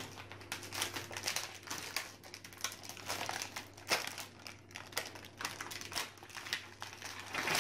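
Plastic candy wrappers crinkling irregularly as hands handle them and pull a bag's top apart.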